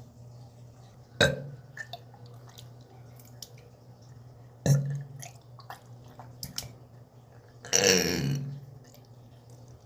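Burping: two short burps, about a second in and near the middle, then a longer, louder burp about eight seconds in.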